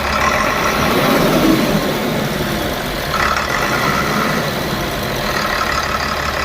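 Tata BS4 bus diesel engine running rough, with a rattling knock and a nasty sound. The owner puts it down to burnt, shorted injector wiring, the same fault that makes the bus smoke black and die under load.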